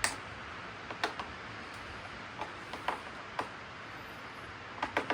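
Scattered light clicks and taps of hands and a tool working on the robot mower's plastic housing and zip-tied wiring harness, with a sharper click right at the end.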